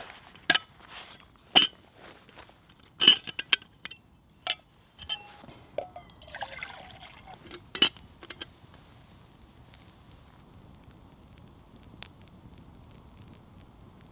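Metal billy can handled, with several sharp clinks of its lid and wire bail, and water poured into it for about two seconds midway. After that only a low steady campfire sound remains.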